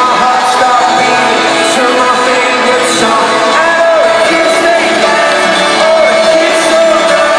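Live rock band playing in an arena, recorded from the audience on a phone or camera, with singing and the crowd shouting and cheering over the music.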